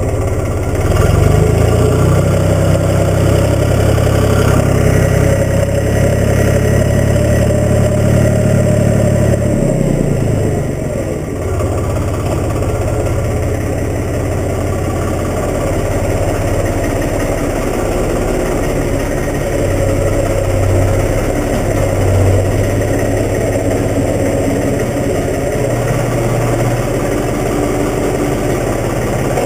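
Case 385 diesel tractor engine running steadily. It is louder for the first ten seconds or so, then eases back and keeps running at a steadier, lower speed.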